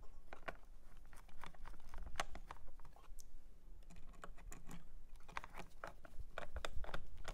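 A small screwdriver driving and snugging the screws that hold a gauge's aircore motor into a plastic instrument cluster: a run of irregular small clicks and taps.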